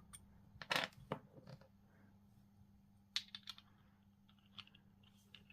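Faint scattered clicks and taps of a small airbrush paint cup and its packaging being handled, with a few clustered about a second in and again around three seconds.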